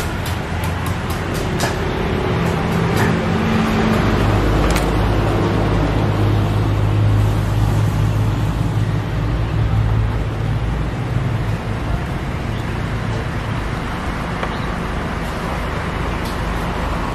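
Road traffic: a motor vehicle's engine rumbling, building to its loudest in the middle and then easing, with a few sharp clicks in the first seconds.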